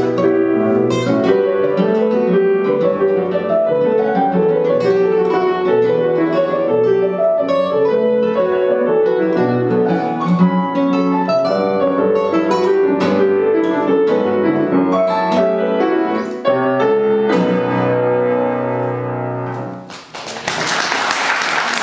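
Classical guitar and piano playing together, the closing bars of the suite's final gigue, ending on long held chords about twenty seconds in. Audience applause starts right after the last chord.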